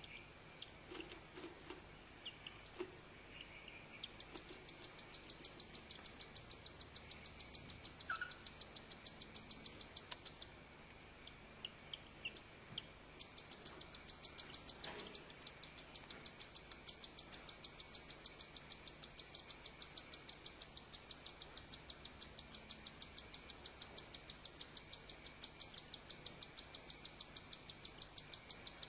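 Baby cockatiel chick cheeping: a fast, regular run of short high peeps, about three or four a second, starting about four seconds in, breaking off for a couple of seconds near the middle, then going on.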